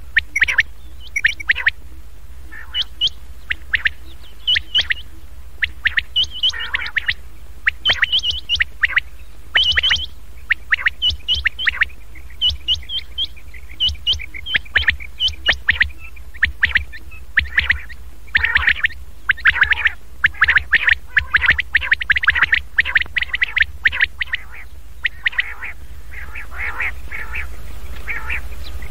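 Common quail calling: a recorded lure call of quick, sharp notes in short clustered runs, over a steady low hum. From about two-thirds of the way through the calls become denser and softer against more background noise.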